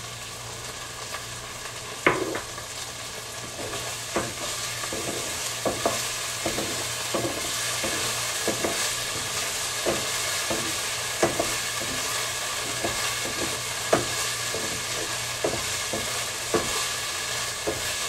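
Shrimp frying in oyster sauce in a pan, a steady sizzle that grows a little louder about four seconds in. A wooden spatula stirs and knocks against the pan every half-second or so, with one sharper knock about two seconds in.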